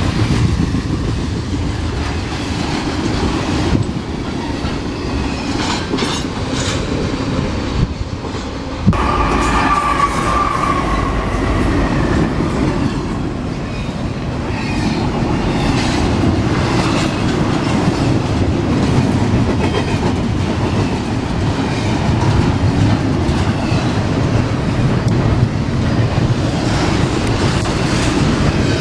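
Freight train's cars rolling past, a steady heavy rumble with the clickety-clack of wheels over rail joints. A sharp knock about nine seconds in, followed by a brief high wheel squeal.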